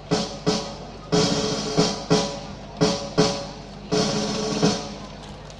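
Txistu band with drums playing: a beat of loud drum strikes with sustained pipe notes between them.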